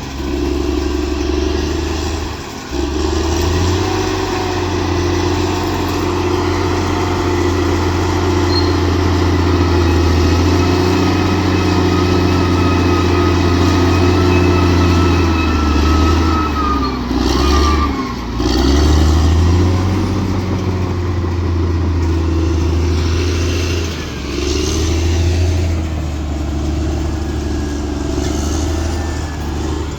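Bulldozer's diesel engine working under load, its note dipping briefly a few times and picking back up as the load and throttle change.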